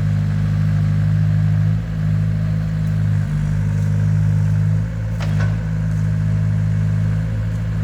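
Caterpillar E70B excavator's diesel engine running steadily, its note dipping briefly a few times, with a short squeak or clank about five seconds in.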